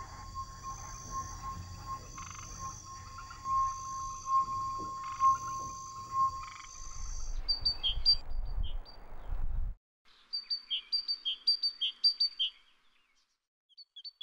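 A low rumble with a steady high tone and scattered knocks for about seven seconds, then a great tit singing its song of quick repeated two-note phrases, pausing briefly before the last phrase near the end.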